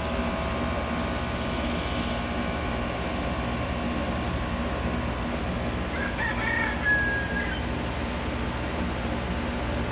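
Dog whistle blown twice, about six seconds apart: each blast is a very high, thin whistle that slides up and then holds for about a second and a half. A brief lower call is heard just before the second blast.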